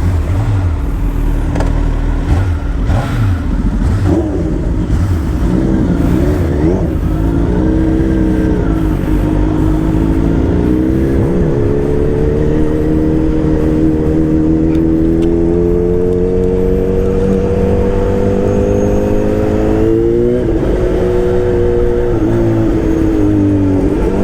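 Motor vehicle engine under way. Its pitch wavers at first, then climbs steadily for about twelve seconds as the vehicle accelerates, drops sharply near the end as at a gear change, and starts climbing again, over a heavy low rumble.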